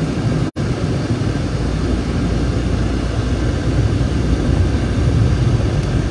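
Steady car-interior rumble and hiss, engine, road and heater-blower noise heard from inside the cabin, cutting out for an instant about half a second in.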